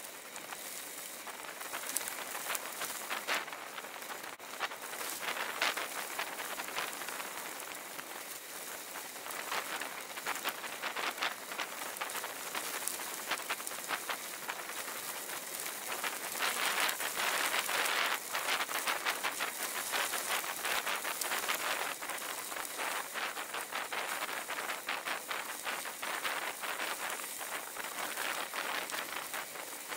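Bicycle tyres rolling over a loose gravel road: a dense, continuous crackle of crunching stones, a little louder about halfway through.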